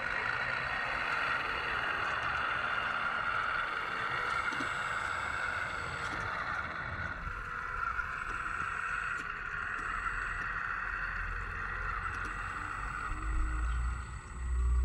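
Radio-controlled CAT wheel loader's electric motors and hydraulic pump running with a steady whine as the machine drives carrying a pallet. A low rumble comes in during the last few seconds.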